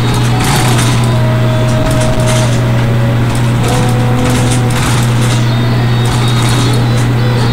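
A loud, steady low hum, with repeated short bursts of crackling and rustling over it.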